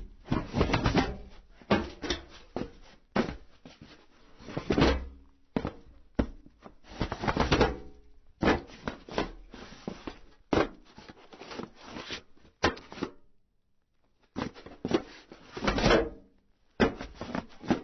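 Footsteps and body movements on a metal roof: irregular clanks, thuds and scraping slides of shoes across the sheet metal, with a brief pause a little past the middle.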